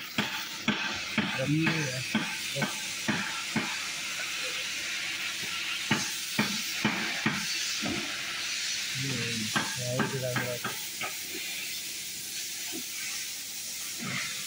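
Irregular metal clicks and knocks as engine timing gears and tools are handled, over a steady hiss.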